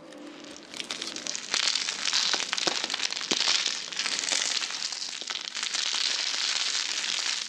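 Small cut soap cubes being crushed and crumbled between the fingers: a dense crackling crunch, light at first and much fuller from about a second and a half in.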